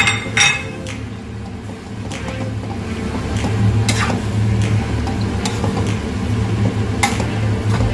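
Metal spatula scraping and tapping against a pan while stirring pork belly into a chili and coconut-cream paste, a few sharp clicks at irregular moments, over a steady low hum.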